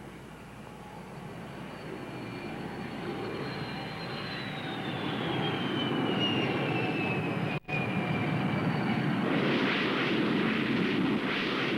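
Grumman F9F Cougar jet on a carrier landing approach that ends in a wave-off, low and slow. Its turbojet whine falls in pitch while the sound grows steadily louder, then a loud rushing roar comes in about nine seconds in. There is a brief dropout in the sound just before the roar.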